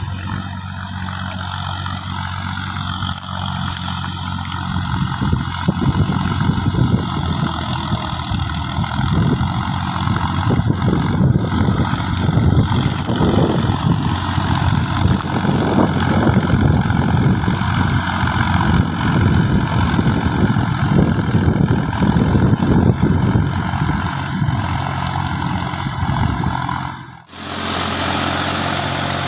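Solis 4415 tractor's diesel engine running steadily under load as it pulls a tillage implement through the soil. The sound cuts out abruptly for a moment near the end.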